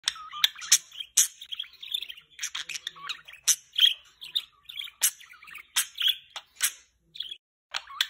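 Pet budgerigar chattering and warbling: a busy, rapid stream of chirps mixed with sharp clicks, pausing briefly near the end.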